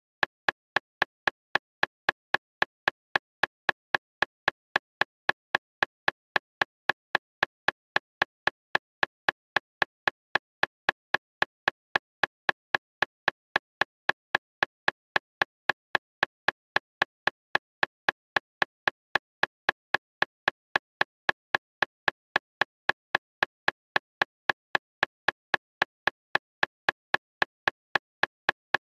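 Steady electronic ticking from speed-reading exercise software, evenly spaced at about three ticks a second, pacing the highlight as it steps from word group to word group.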